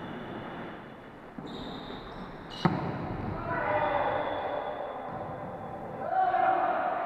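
A volleyball struck once with a sharp smack about two and a half seconds in, over the ongoing noise of play on the court.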